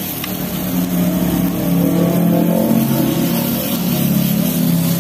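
A motor vehicle's engine revving, its pitch wavering up and down and louder in the middle.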